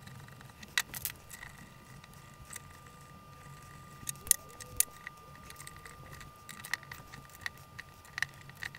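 Scattered small clicks and taps of an Allen key and screws against the metal and plastic parts as the side pieces of a control lever housing are fitted and screwed onto its body.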